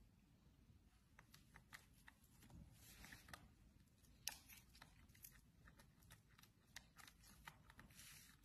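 Near silence with faint scattered clicks and crackles of hands peeling Manila tamarind seed pods. The sharpest click comes a little past the middle.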